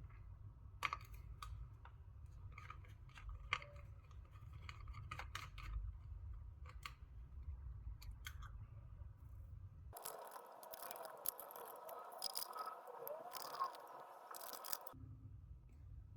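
Light clicks and taps of small parts being handled over a low hum, then about five seconds of rustling and scraping with sharp ticks, before the hum returns.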